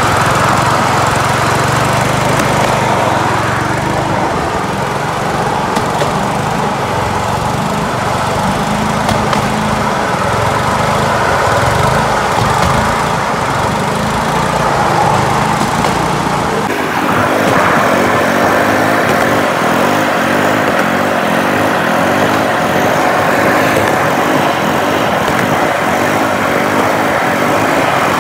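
Small engine of a motorized rail skate running steadily as the trolley rolls along the railway track. About seventeen seconds in the sound changes abruptly and the deep rumble drops away.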